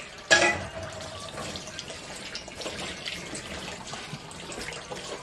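Tap water running into a plastic basin of cold water in a stainless-steel sink while hands swish blanched mulberry leaves about in it. There is one sharp knock just after the start.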